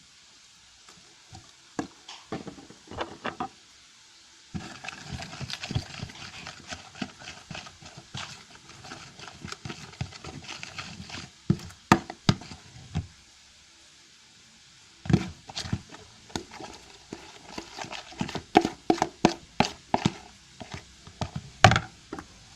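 A spoon stirring and working slime made of glue and shaving foam in a bowl: irregular clicks and knocks of the spoon against the bowl, in spells with a short pause about two-thirds of the way through.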